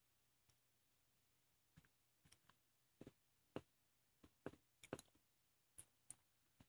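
Faint, irregular light clicks and taps, about a dozen, from fingers and strawberry slices touching a ceramic bowl and a glass dish while slices are picked up and set in place.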